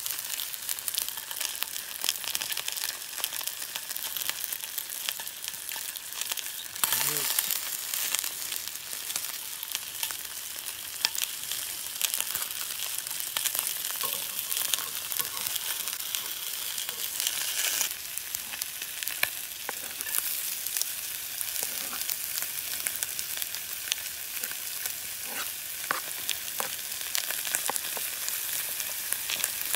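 Whole trout sizzling in oil in a cast-iron skillet, a steady hiss full of small crackles. The sizzle flares louder about seven seconds in and again around eighteen seconds.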